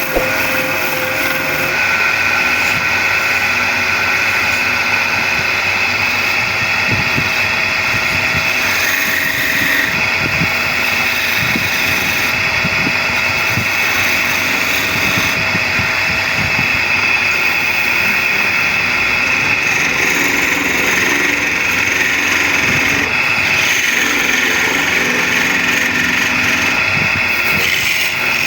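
Wood lathe running steadily while a turning tool cuts into the spinning wooden leg.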